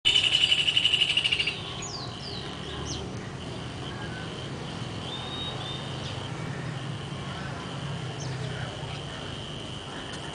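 Outdoor ambience of birds and insects: a loud, rapid high trill for about the first second and a half, then a steady high-pitched insect buzz with short breaks, and several short downward-sweeping bird chirps.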